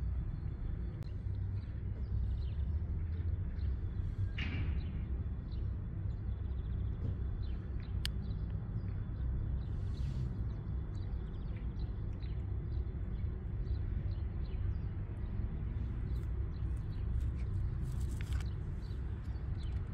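Outdoor ambience: a steady low rumble with scattered short bird chirps, one louder falling call about four seconds in, and a single sharp click near the middle.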